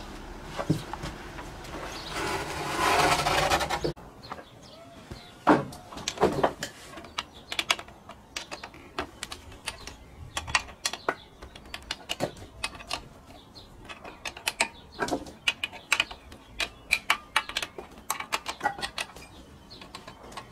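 A heavy sawn oak board scraping rough and loud as it is shifted, stopping suddenly about four seconds in. Then a run of sharp, irregular metal clicks and taps, several a second, as a hand tool works on the Logosol Timberjig chainsaw-mill bracket on the chainsaw.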